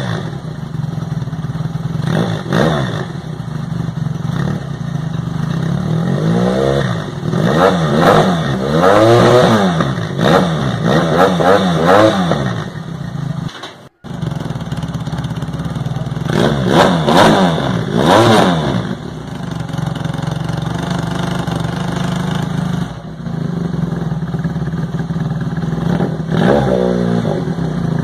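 Motorcycle engine idling through an aftermarket slip-on silencer, with throttle blips that rise and fall several times. The sound drops out briefly about halfway, and the engine then idles and revs again through a different silencer.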